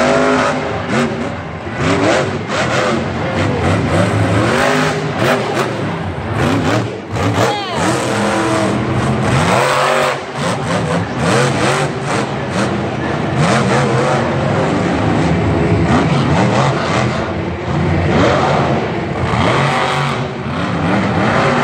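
El Toro Loco monster truck's supercharged V8 revving hard over and over, its pitch climbing and dropping many times as the truck drives and turns on the dirt.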